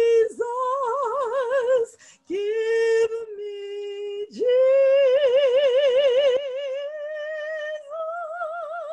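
A woman singing solo and unaccompanied: long held notes with wide vibrato, in phrases broken by two short breaths, the notes climbing higher in the later phrases.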